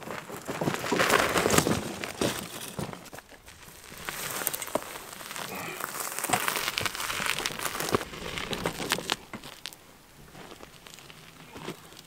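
Wheels of a portable generator crunching over a gravel track as it is pushed by hand, loudest in the first couple of seconds, going on more evenly after a short lull and fading away near the end.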